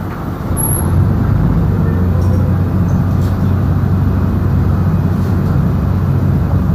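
Chao Phraya express river boat's diesel engine running under way, a steady low drone over water and wind noise, getting louder about a second in.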